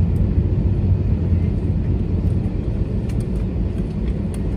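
Steady low cabin rumble of an Airbus A321neo taxiing, heard from inside the cabin: its CFM LEAP-1A engines at taxi power and the airframe rolling along the taxiway, with a few faint clicks.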